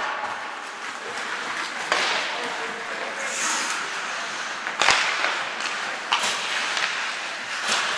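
Ice hockey rink during play: a steady hiss of skates on the ice broken by four sharp knocks of sticks and puck, the loudest about five seconds in.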